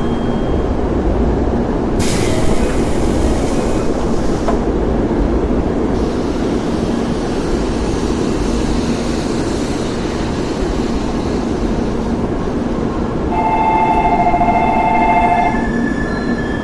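Train at a station platform: a steady, dense rumble of railway cars running on the track, with a burst of hiss about two seconds in. Near the end a high two-note tone is held for about two seconds, then a thinner high tone lingers.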